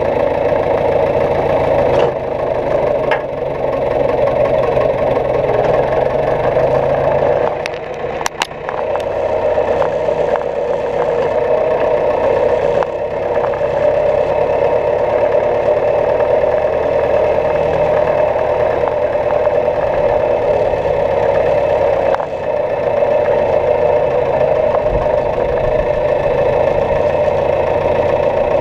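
Farm tractor engine running steadily, with a brief drop and a few clanks about eight seconds in.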